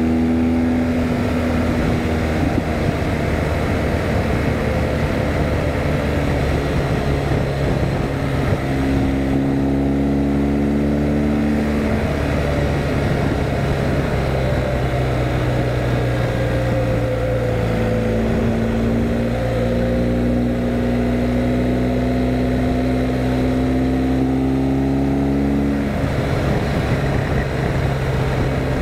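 BMW R1250GS Adventure's boxer-twin engine running under way, its note rising and falling with the throttle, heard over wind and road noise. The pitch climbs slowly for several seconds and then drops suddenly a few seconds before the end.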